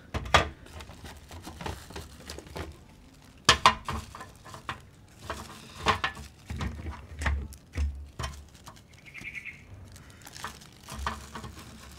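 Hands handling and opening a small plastic zip-lock bag, with scattered sharp clicks and taps and some rustling; the sharpest tap comes about three and a half seconds in.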